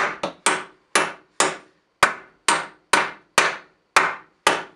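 Hammer blows on a wooden 2x4 framing stud, a steady series of about a dozen strikes, roughly two a second, each with a short ringing decay.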